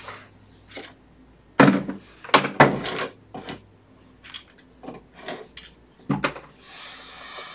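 Objects being handled and set down on a work surface: a series of separate knocks and clunks, then a short hiss near the end.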